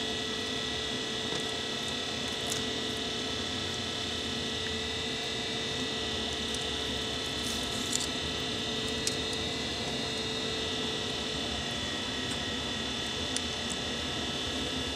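A steady hum in the background, with a few faint clicks and taps as steel pliers and fish are handled on a glass tabletop.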